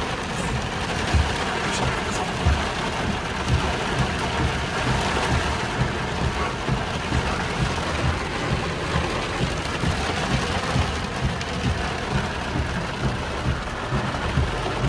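Heavy rain falling steadily in a thunderstorm, with irregular low thumps of wind buffeting the microphone.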